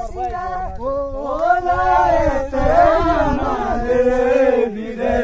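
Singing, in long drawn-out notes that bend up and down in pitch, over a low rumble.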